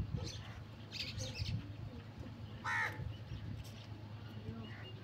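A crow cawing: one loud, falling call about halfway through, with a few fainter short calls earlier.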